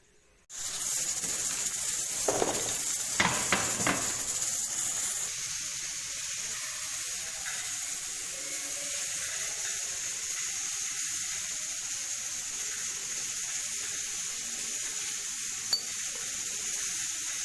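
Pot of water boiling on the stove: a steady hissing simmer, with a couple of brief clatters about two and three seconds in.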